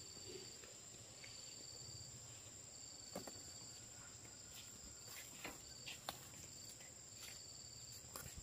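Faint insects trilling: a steady high whine with shorter high chirps repeating about every second, and a few soft clicks scattered through.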